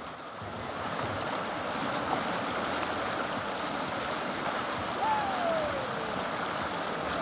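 Steady rush of whitewater from the Potomac River rapids. About five seconds in there is a brief, faint falling cry.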